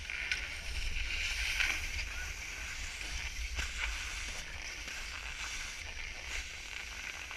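Skis sliding and scraping over packed snow as the skier glides off a chairlift, with a steady low rumble of wind on the microphone.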